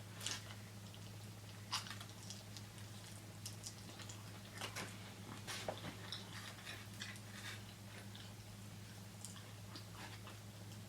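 A person chewing food close to the microphone: irregular soft crunches and wet mouth clicks, over a steady low hum.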